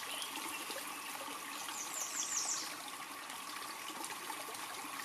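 Steady outdoor hiss with a faint steady hum, and about two seconds in a bird's quick run of about five high chirps, each sliding down in pitch.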